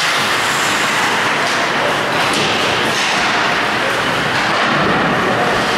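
Ice hockey game play: a few sharp knocks of stick, puck or boards over a loud, steady rink noise.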